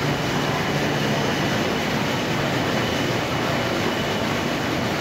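Electric-motor centrifugal pump running steadily, its 114 mm outlet pipe pouring a heavy stream of water that splashes into the river below.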